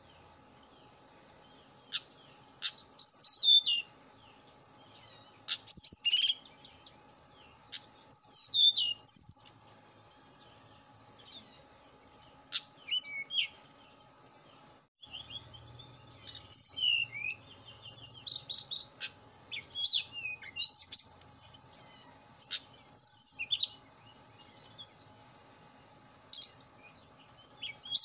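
A caged tledekan gunung singing short, high, sweet whistled phrases with pauses between them, the phrases coming thicker in the second half.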